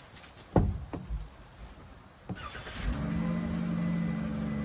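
A few light knocks, then a steady low machine hum sets in about three seconds in.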